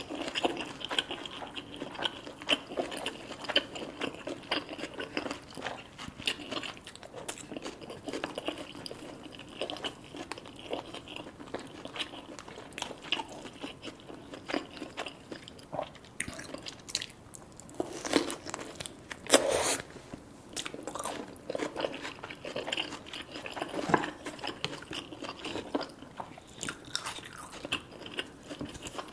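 Close-up crunching and chewing of crispy deep-fried food, in many sharp bites and crackles, with one louder crunch about two-thirds of the way through.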